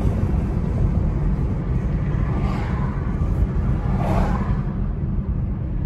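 Inside a moving car, a steady low rumble of engine and tyre noise on a wet road. Two brief swells of hiss come about two and a half and four seconds in.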